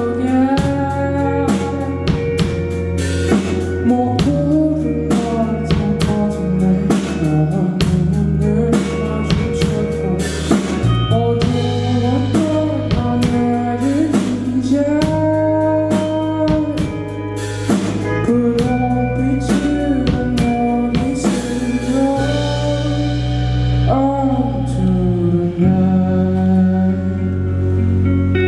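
Live band music with a drum kit playing snare and cymbal hits over bass and guitar chords and a melodic line. The drum hits thin out about 22 seconds in, leaving the bass and guitar ringing on.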